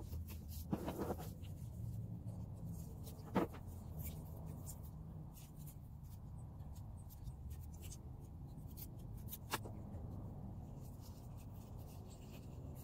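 Light knocks and rustling from black plastic nursery pots being handled and set down on a plastic table: a few separate knocks, about a second in, at about three and a half seconds and near ten seconds, with faint scattered ticks over a low steady background rumble.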